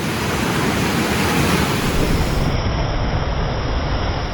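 Ocean surf washing in over the rocks, a steady loud rush of breaking water.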